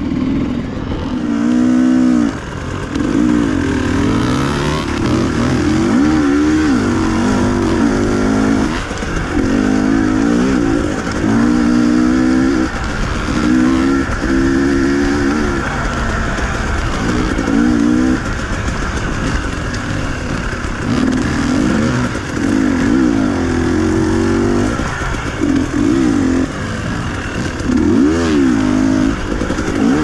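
Dirt bike engine revving up and down as it rides a trail, the pitch rising and falling again and again every second or two with throttle on and off.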